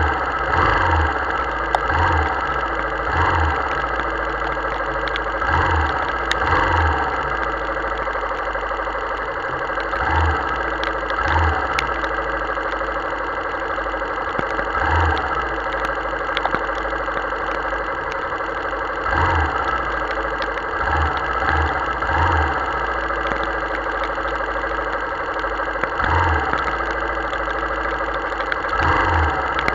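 Motorcycle engine idling while stopped in a heavy downpour, under a steady hiss of rain, with short low bumps every second or few, irregularly spaced.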